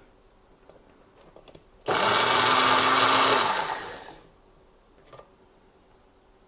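Magic Bullet blender motor pulsed for about two seconds to froth a shot of almond milk. It starts suddenly, runs at a steady whir, then winds down with a falling pitch when released.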